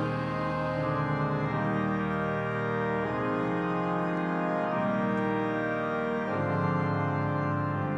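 Organ playing held chords, the harmony changing every second or so.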